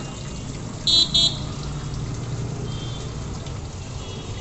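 Two short toots of a vehicle horn in quick succession about a second in, over a steady low hum and busy background noise.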